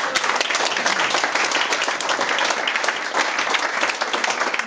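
Small audience of seated guests applauding: dense, steady hand-clapping.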